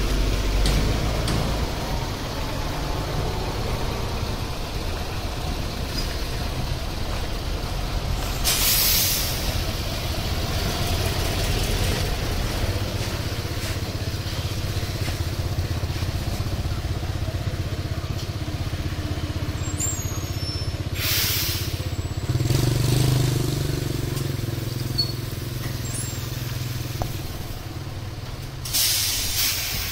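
Heavy lowboy truck's diesel engine running steadily at low revs, with three short hisses of released air from its air brakes spread through, the last near the end. The engine note lifts briefly a little past the middle.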